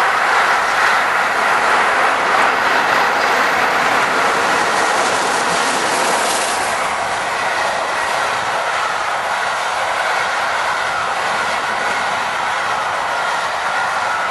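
A passenger train hauled by steam locomotive 60163 Tornado rolling past: a steady, loud rush of wheels on the rails that eases slightly toward the end.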